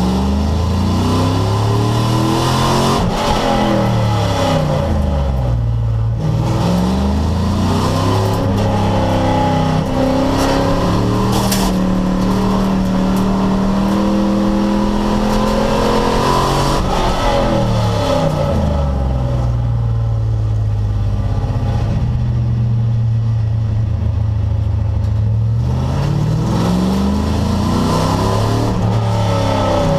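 Race car engine under hard racing load, revving up through the gears and dropping back on downshifts and braking, with stretches held at steady revs.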